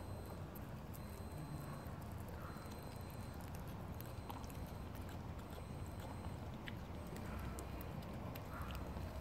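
Kitten eating wet cat food, with small wet chewing and smacking clicks, and a few short faint meows, two of them near the end.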